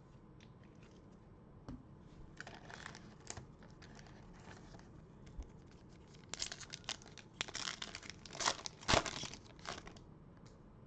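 Foil wrapper of a Panini Prizm basketball card pack crinkling and being torn open, in scattered rustles that grow into louder tearing bursts over the last few seconds.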